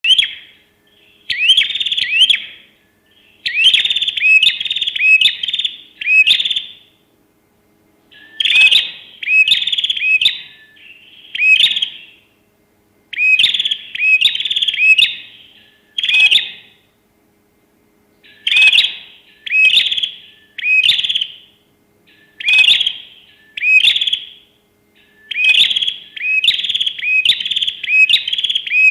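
A bird calling over and over: short, sharp rising notes given singly or in quick runs of up to four, with gaps of a second or two between runs.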